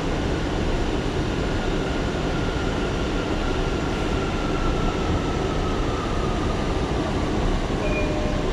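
R179 subway car running along the track, heard from inside: a steady rumble of wheels on rail, with a faint whine from its Bombardier MITRAC AC propulsion slowly falling in pitch.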